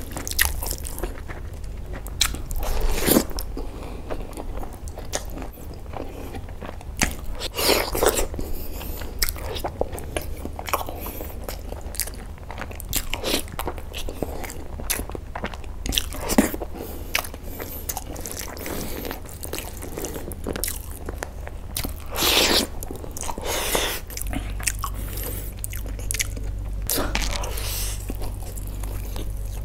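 Close-miked eating: a person chewing and biting into chicken curry with fried rice and a chicken lollipop, wet mouth sounds and irregular bites with a few louder ones along the way.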